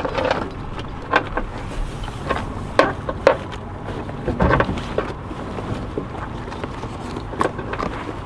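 Gear being handled on a small boat: a few scattered knocks and clunks, several seconds apart, over steady background noise.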